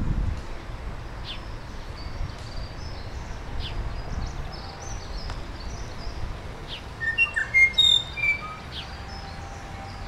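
Small songbirds singing and chirping: scattered high chirps, with a short falling call note repeated every second or two. A louder run of clear whistled notes comes about seven seconds in and lasts a second or so.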